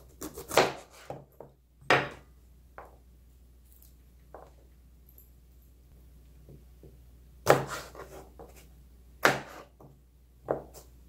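Knife cutting a yellow bell pepper on a plastic cutting board: scattered sharp taps as the blade goes through and hits the board, with pauses between groups of cuts.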